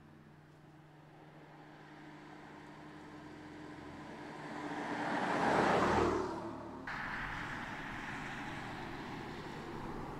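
BMW M4 Convertible's twin-turbo straight-six car passing by. Its engine and tyre noise builds to a loud peak a little before the middle and then falls away as it goes past. After a sudden cut, a steadier, quieter running sound follows.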